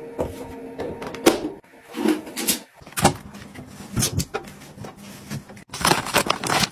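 Handling noises: a series of sharp plastic clicks and knocks from a hinged plastic lid and box, then a dense crinkling rustle near the end as a hand works inside a plastic pouch of laundry sheets.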